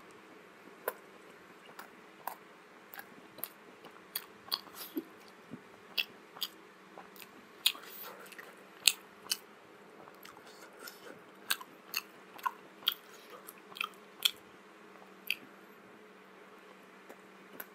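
Close-up chewing of steamed vegetable momo: many short, wet mouth clicks and smacks at irregular intervals, over a faint steady hum.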